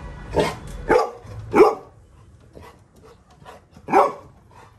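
Labrador retriever barking at a stranger coming in the door: three barks in quick succession about half a second apart, then one more bark near the end. These are guarding alarm barks.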